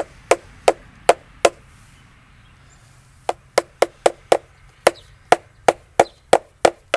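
Mallet striking a chisel being driven into a log, in quick sharp blows about three a second: a run of five, a pause of about two seconds, then a longer run of about a dozen.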